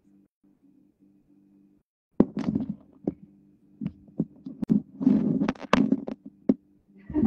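Irregular knocks and thumps, starting about two seconds in and loudest around five to six seconds, over a faint low hum that drops in and out.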